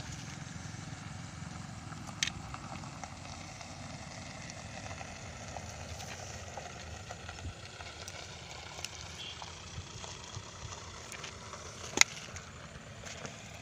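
Open-air background noise with a steady low rumble, broken by a sharp click about two seconds in and a louder sharp click near the end.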